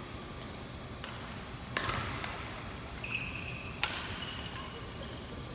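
Badminton rally: several sharp racket hits on a shuttlecock, two of them louder, ringing briefly in a large sports hall, with two short shoe squeaks on the court floor.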